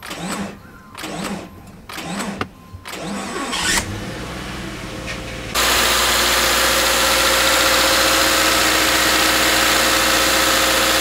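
Freshly swapped Subaru FB20 2.0-litre flat-four engine being started: a few short sounds while the ignition is cycled to prime the fuel system, the engine catching and running low about four seconds in, then idling steadily, loud and close-up, from about five and a half seconds.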